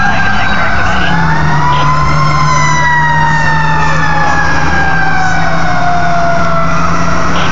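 Fire truck siren on a slow wail: the pitch rises for about a second, falls slowly over several seconds, then starts to rise again near the end. A low steady drone runs underneath.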